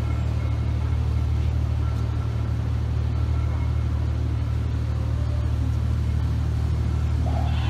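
Steady low engine rumble of the Molly Brown paddle-wheel riverboat under way, an even drone with no change in pitch.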